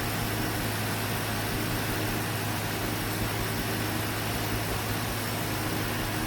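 Toyota Tundra engine idling steadily with a freshly fitted S&B cold air intake, a constant low hum under an even rush of air and engine noise.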